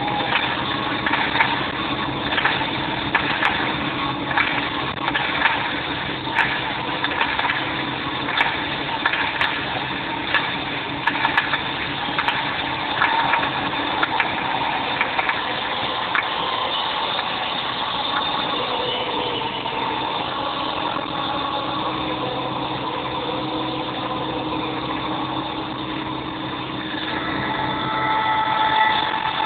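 PistenBully snow groomer's diesel engine running steadily, with repeated sharp clanks over the first dozen seconds. The engine grows louder near the end.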